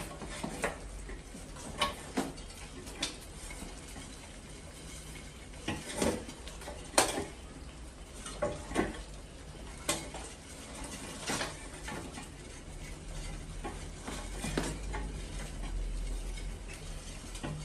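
Irregular sharp knocks and clatters from a wooden tipping-board mouse trap, about a dozen spread out, as the hinged board tips and mice drop onto it and scramble over wood and wire mesh.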